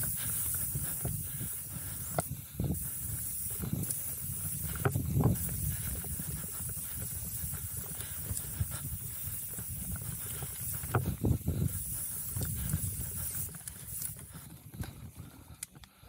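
Steady hiss of a mountain bike riding up a dirt singletrack: tyres rolling on packed dirt and air rushing over the microphone, with scattered small knocks and clicks from the bike.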